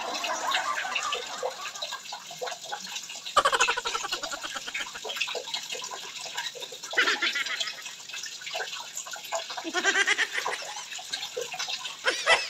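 An egg-yolk and olive-oil mixture being stirred in a glass tumbler: rapid light clicks of the stirrer against the glass with a wet swishing, broken a few times by brief high-pitched sounds.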